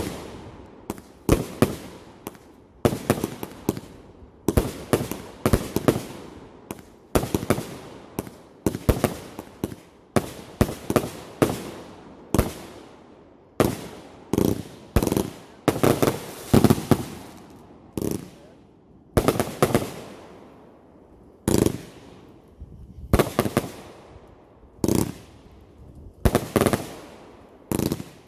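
Fireworks going off one after another: sharp bangs in groups every second or two, each dying away, keeping up through the whole stretch.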